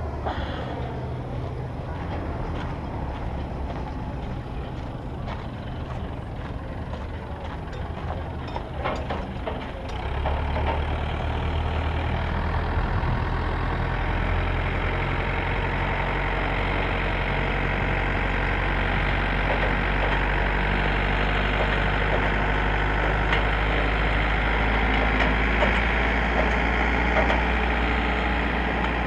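Truck engine running steadily, growing louder and heavier about ten seconds in and holding at that level.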